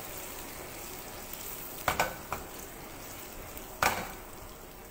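Taro pieces frying in hot oil in a wok, a steady sizzle, broken by sharp metal clanks of the wok being tossed over the gas burner: two close together about two seconds in and one near the end.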